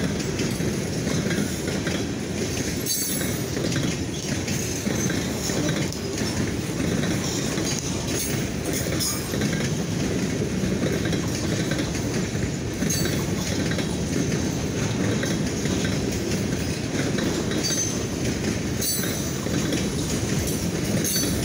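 Freight train of boxcars rolling past close by: a steady rumble and rattle of steel wheels on the rails, with a few brief high wheel squeals.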